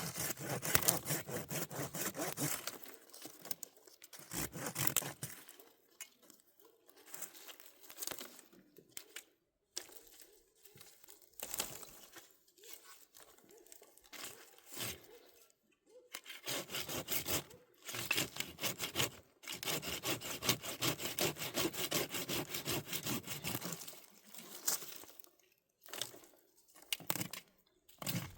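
Bursts of rapid rasping and scraping, each lasting a few seconds with short pauses between, the longest in the second half.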